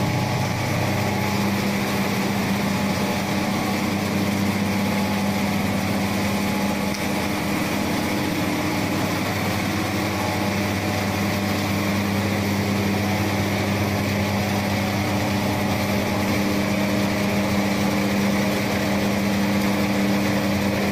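Yellow mealworm sorting machine running: a steady motor hum over constant mechanical noise.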